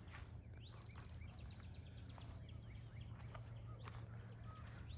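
Wild birds calling in open scrub: short high whistled notes and a high rapid trill that recurs every few seconds, with a few quick falling notes about a second in, over a faint steady low rumble.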